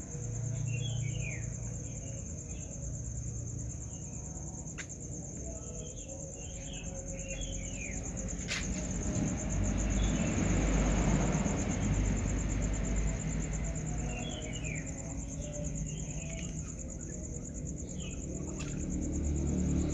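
Steady high-pitched insect chirring, like crickets, with clusters of short falling chirps, over a low rumble that swells for a few seconds in the middle; a few sharp clicks.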